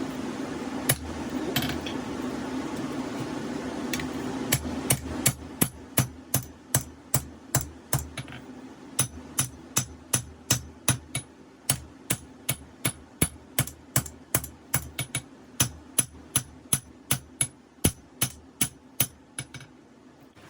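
Hand hammer striking hot 5160 steel on an anvil to draw out a knife blade. The strikes come in a steady run of about two a second, each with a short bright ring, starting about four seconds in. Before that, a steady rushing noise cuts out.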